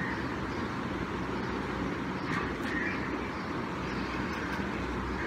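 Steady background noise with a few faint chirps about two to three seconds in.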